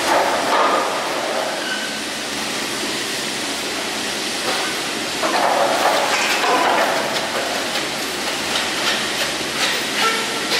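A running 1986 Garaventa detachable chairlift: a steady mechanical rumble and clatter of the rope and chairs, swelling for a couple of seconds about midway.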